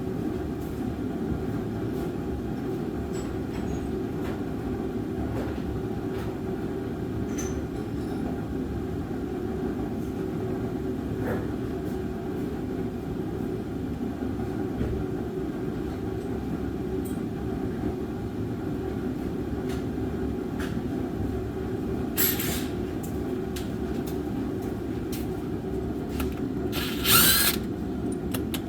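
Steady low drone of a running shop heater, with two short clatters near the end.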